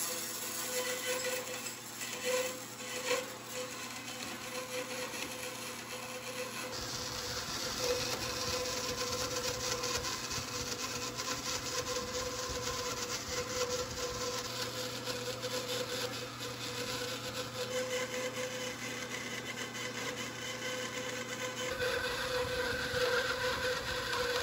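Metal-cutting band saw running with an MK Morse 10 tpi bimetal blade, cutting dry without coolant through a roller blind's polyester fabric and aluminium tube. A steady hum runs under the noise of the cut, which grows stronger about seven seconds in.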